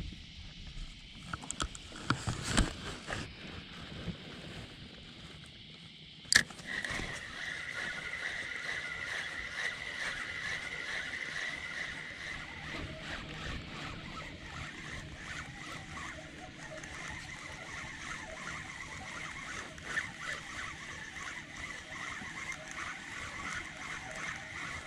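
Water lapping and sloshing against a kayak hull, with a few knocks about two to three seconds in and a sharp click a little after six seconds.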